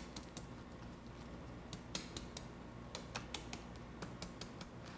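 Light, irregular clicks of a chef's knife on a wooden cutting board as large green onion bulbs are smashed with the flat of the blade, about three clicks a second.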